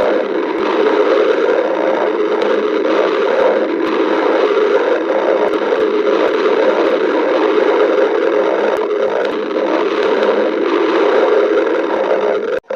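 Stomach growling: a continuous gurgling rumble with no breaks, cutting off abruptly right at the end.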